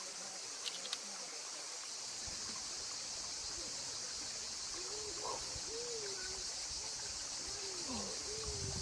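Steady high outdoor hiss from the valley's natural surroundings, with a couple of faint clicks about a second in and faint wavering pitched sounds from about halfway through.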